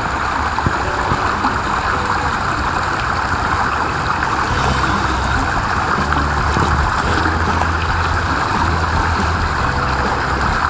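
Creek water running over a shallow, rocky riffle: a steady rushing sound, with low held tones underneath from about halfway through.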